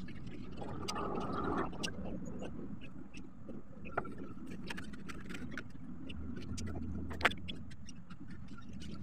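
Steady low background rumble with scattered light clicks; a louder low rumble swells about six seconds in, and a sharp tap sounds about seven seconds in.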